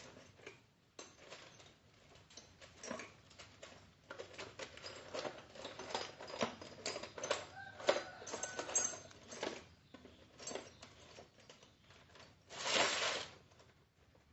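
Metal tools and parts clicking, clinking and rattling in irregular handling while a motorcycle horn and its bracket are fitted, with a short rushing noise near the end.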